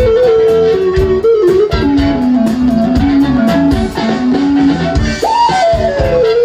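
Live band playing an electric guitar solo: a lead melody stepping downward, with a quick slide up and back down about five seconds in, over the band's steady beat.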